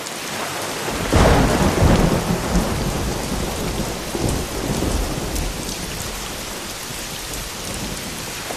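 Steady heavy rain with a roll of thunder that breaks about a second in and rumbles away over the next few seconds.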